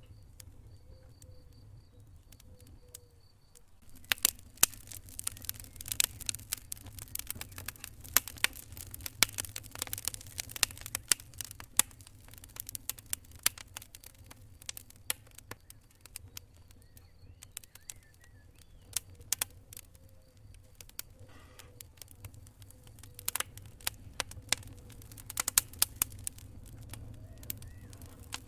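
Wood fire in a fireplace crackling, with irregular sharp pops and snaps over a steady low rumble. The crackling is sparse for the first few seconds, then turns dense and lively.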